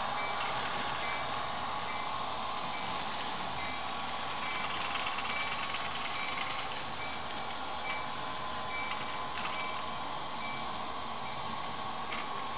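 Model diesel locomotive running with a steady mechanical hum. A short, high electronic beep repeats roughly twice a second over it.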